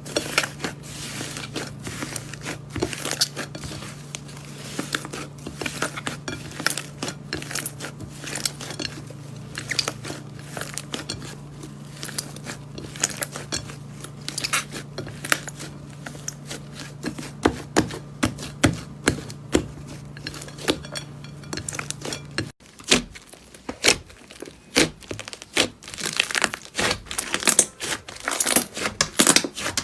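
Slime being squished and stretched by hand, a dense run of sticky crackles and small pops. A low steady hum underneath cuts off abruptly about two-thirds of the way through.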